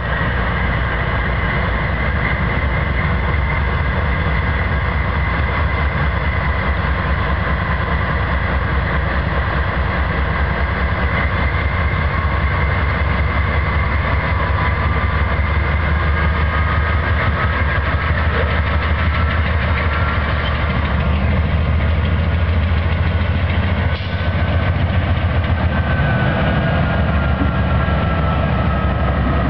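Diesel locomotives, an Illinois Central EMD SD70 leading a CN unit, running slowly past close by with a steady low engine rumble. Thin high tones slide slowly in pitch above it. The rumble grows a little louder about three-quarters of the way through as a unit works harder, puffing exhaust.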